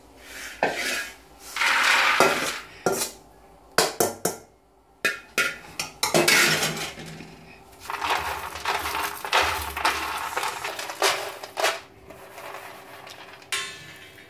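Roasted peanuts rattling and scraping on a metal tray as they are handled and rubbed by hand to strip their skins, with irregular clatters of metal against metal.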